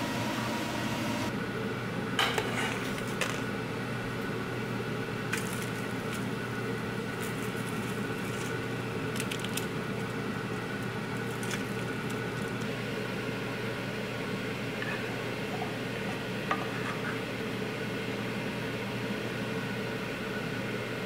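Kitchen cooking sounds: a steady hum and hiss with a few scattered clinks and taps of a spoon against a pan and plates.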